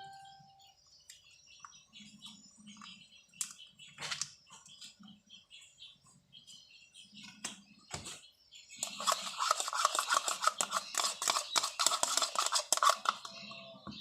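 Scattered small knocks of kitchen utensils, then a spoon clinking and scraping rapidly against a glass container for about four seconds as honey is spooned in and mixed.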